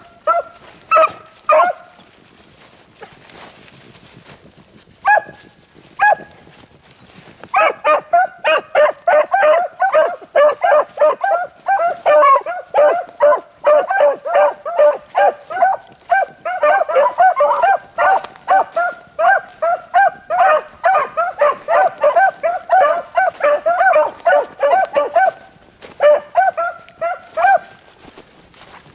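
A pack of beagles baying on a rabbit's scent trail. A few scattered barks come first, then from about seven seconds in the dogs give steady, overlapping tongue for some eighteen seconds, and the barking thins back to a few barks near the end.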